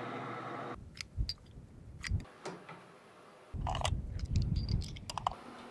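A metal lathe running steadily, cutting off under a second in, followed by a few sharp metallic clicks. From about halfway, a low wind rumble with cartridges clicking as they are pressed into a rifle magazine.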